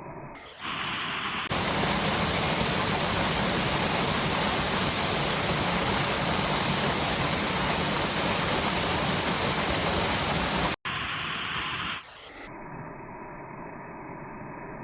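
Waterfall: a steady, loud rush of falling water. It starts abruptly about half a second in, drops out for a moment near eleven seconds, and cuts off about twelve seconds in.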